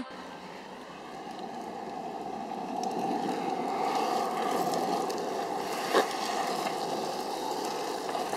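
Freeline skate wheels rolling on asphalt: a steady rolling rumble that grows louder over the first few seconds, with one sharp click about six seconds in.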